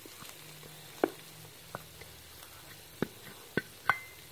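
Wooden spoon knocking and scraping against a metal pan while boiled potatoes are mashed and stirred into oily onion-tomato masala: about five sharp knocks over a faint sizzle.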